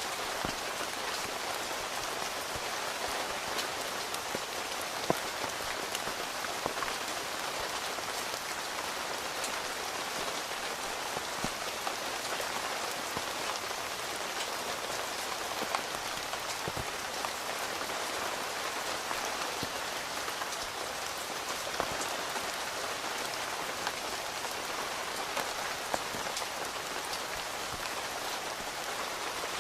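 Steady rain falling on a tent's fabric, heard from inside the tent, as an even hiss with a few sharper, louder single drops striking now and then.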